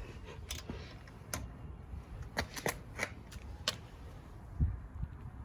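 Sharp, irregular metallic clicks from a click-type torque wrench being worked on a wheel's lug nuts, about eight in all.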